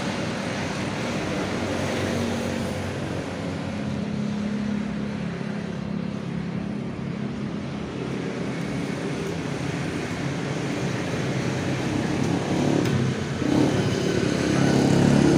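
Steady background motor vehicle noise, engines running with a low hum that swells a little near the end.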